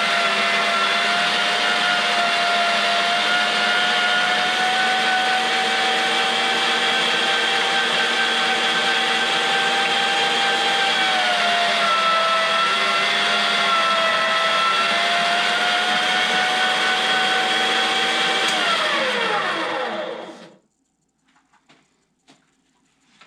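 STX Turboforce electric meat grinder running steadily under load as it grinds venison and pork, with a high motor whine that dips briefly in pitch midway. Near the end it is switched off and spins down, its whine falling in pitch until it stops.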